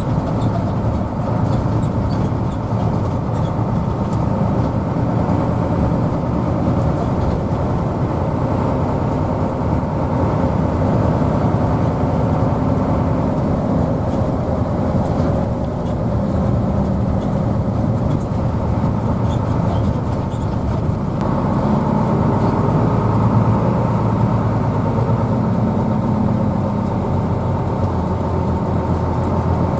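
Hino AK bus engine running and road noise, heard from inside the passenger cabin while the bus is on the move. The engine note shifts up and down in pitch a few times as the bus changes speed.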